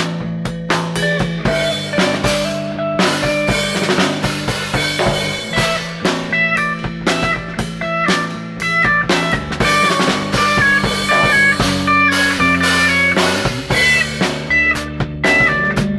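Live instrumental jam: a drum kit with cymbals keeps a busy beat, while a guitar plays a melody of single notes over a bass guitar.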